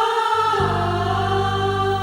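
Background music with sustained choir-like singing; a low held note comes in about half a second in.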